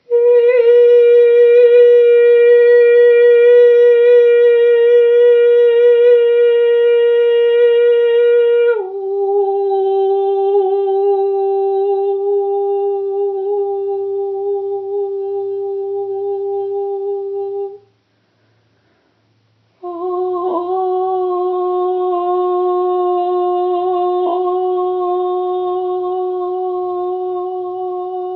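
A woman's voice singing long, wordless held tones for a light-activation meditation: a high note held for about nine seconds, then a lower note held for about another nine, a short silence for a breath, and another long low note.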